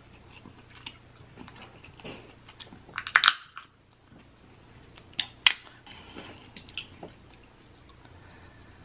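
Dungeness crab shell being cracked and picked apart by hand, with chewing. A quick run of sharp cracks comes about three seconds in and two more snaps come a couple of seconds later, with small clicks and crunches between.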